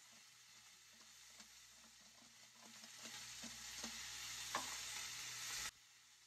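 Salt pouring from a shaker onto raw chicken and herbs in a pot: a faint hiss with small ticks that grows louder, then cuts off suddenly near the end.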